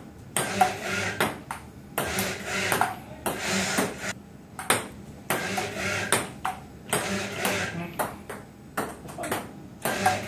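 Plastic table-tennis ball repeatedly clicking off the table and off the robot arm's paddle in a rally, a string of sharp pings at irregular intervals.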